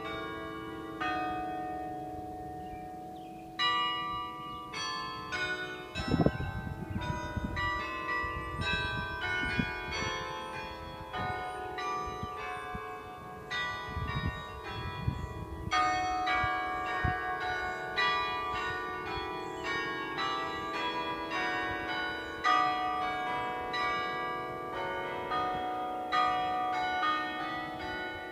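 Tower carillon being played by hand: a tune of struck bronze bells, single notes and chords following one another, each bell ringing on beneath the next.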